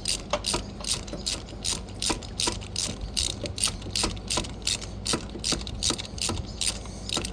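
Hand ratchet wrench with a socket clicking in a quick, even run, about four clicks a second, as a fastener is tightened down on the engine.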